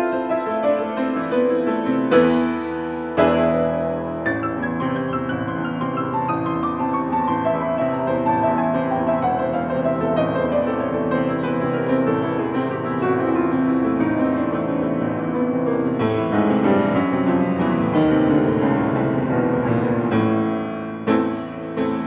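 Baldwin grand piano played at full concert level: fast, dense passagework in a classical piece, with loud accented chords about two and three seconds in, a long descending run through the middle, and strong accents again near the end.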